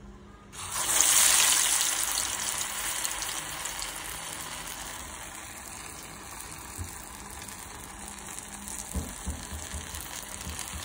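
Urad dal vada batter deep-frying in hot oil: a loud burst of sizzling about half a second in, settling into a steady frying sizzle. A couple of soft knocks near the end.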